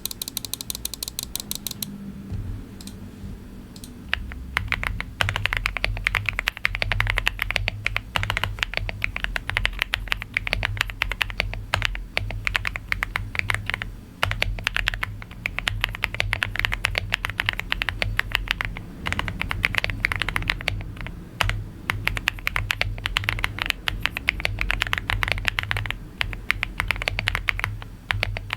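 Fast, continuous typing on a LEOBOG AMG65 mechanical keyboard with Jasper switches and Cherry-profile PBT keycaps, a thocky, creamy keystroke sound. The typing picks up to a dense run about four seconds in, with a few brief pauses.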